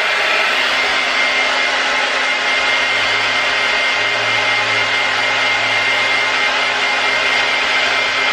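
Hand-held hair dryer running steadily, a loud even rush of air with a thin high whine in it, blowing on freshly spread wig glue to dry it.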